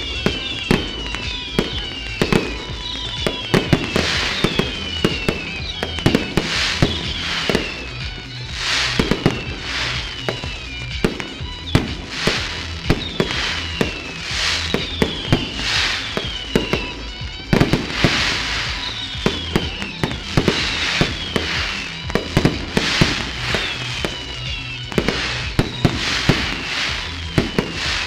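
Fireworks display: a rapid, continuous string of bangs and crackles, with repeated high whistles that fall in pitch, over background music with a steady low bass line.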